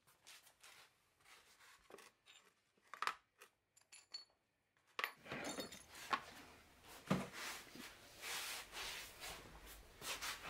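Shards of a broken china bowl being gathered up: scattered light clinks of pieces against each other and the floor, the sharpest about three seconds in. From about halfway, a few louder knocks of handling come over a faint room hum.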